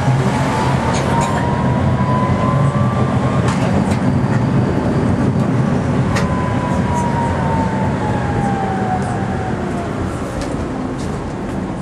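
Tatra T4D tram running, heard from inside the car: a steady low hum from the motors and running gear, with a thin whine that climbs slightly in pitch over the first few seconds. About halfway a whine returns and falls steadily in pitch as the tram slows, with scattered clicks and rattles from the wheels and car body.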